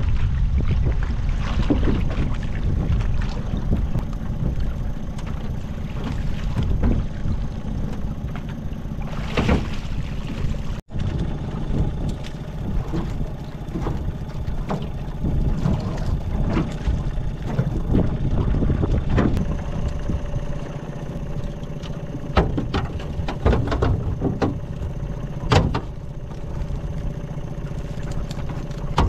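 Wind buffeting the microphone over water lapping against a small aluminium boat, with scattered knocks and rattles as a mud crab pot is hauled aboard by its rope and handled on deck.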